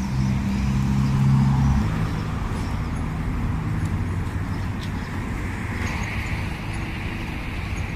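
Street traffic: a motor vehicle's engine runs steadily close by for about the first two seconds, then fades into a steady background of traffic noise.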